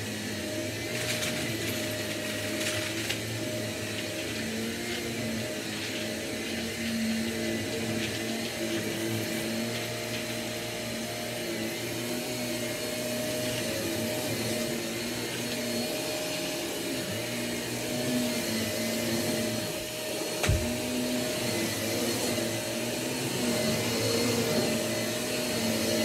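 Bagless upright vacuum cleaner running steadily as it is pushed back and forth over carpet, its motor hum shifting a little with each stroke. There is a single low thump about twenty seconds in.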